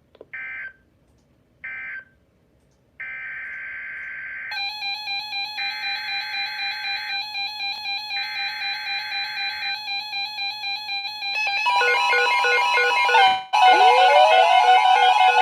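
EAS/SAME digital data bursts from a NOAA Weather Radio broadcast: two short buzzy bursts that end the previous alert, then three longer bursts of a new alert header. From about 4.5 s a pulsing electronic alert beep, about four pulses a second, plays over them. It grows louder near the end, with a tone sweeping upward.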